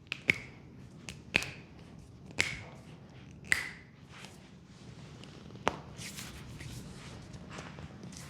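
A run of sharp snapping cracks from a hands-on leg massage, about one a second for the first few seconds and one more a little past the middle, each ringing briefly.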